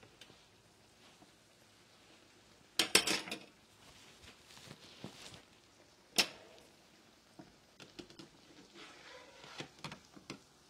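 Metal kitchen utensils clattering against a frying pan: a loud burst of knocks about three seconds in, one sharp clink about six seconds in, then lighter taps. Under them, the faint steady sizzle of a latke frying in oil.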